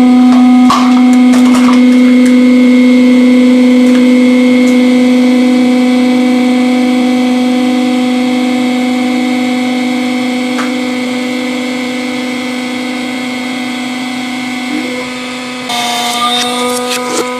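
Hydraulic press pump motor running with a steady hum that slowly gets quieter; near the end the tone shifts and a few sharp clicks sound.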